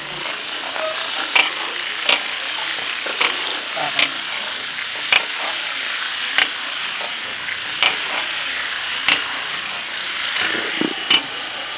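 Sausages sizzling in hot oil in a large iron wok, with a steady hiss. A metal spatula stirs and turns them, clacking against the wok about once a second.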